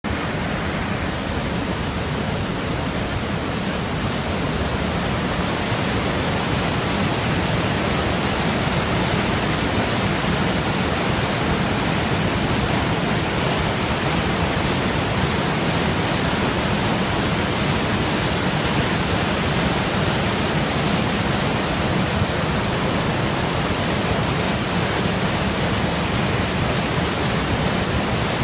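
A large waterfall's white water rushing in a steady, dense noise with no break, growing a little louder over the first few seconds.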